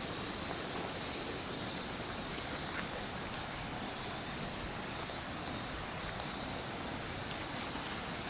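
Steady rush of running water from a shallow stream, with a steady high insect drone over it and a few faint ticks.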